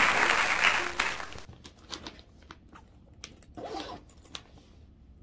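Applause that stops abruptly about a second and a half in. After it come a few soft clicks and short rustles of hands handling something small.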